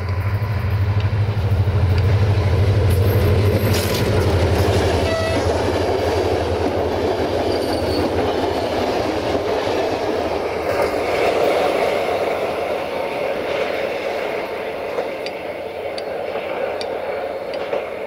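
A locomotive-hauled passenger train passing close. A low locomotive hum comes first, with a brief horn note about five seconds in, and then a steady rumble and wheel clatter as the coaches roll past.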